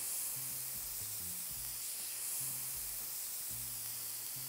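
Raw steak searing on a heated basalt steak stone: a steady, high hiss of sizzling meat juices and oil. Faint background music with low notes plays underneath.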